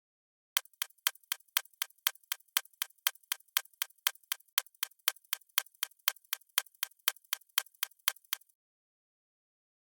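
Ticking clock sound effect: even, crisp ticks about four a second, lasting about eight seconds against dead silence, then stopping.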